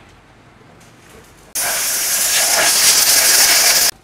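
Loud steady hiss of compressed air blowing. It starts abruptly about a second and a half in and cuts off sharply about two and a half seconds later.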